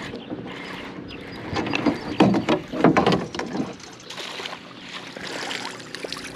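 A hooked bass splashes at the surface and is scooped into a landing net, giving a burst of loud, irregular splashes about two to three seconds in. Water then pours and drips off the mesh as the net is lifted from the water.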